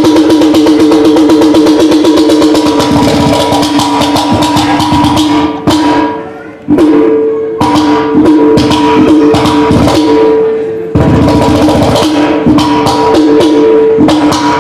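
Mizhavu, the large copper pot drum of Koothu, played fast with the bare hands in dense rapid strokes over a steady ringing pitch. The drumming breaks off briefly about six seconds in, then resumes.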